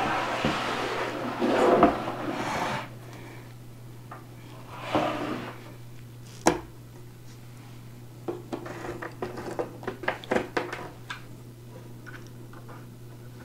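Particleboard furniture panels being handled and fitted: sliding and scraping at first, a sharp knock about six and a half seconds in, then a run of small clicks and taps as cam-lock fasteners are pushed into their holes and turned.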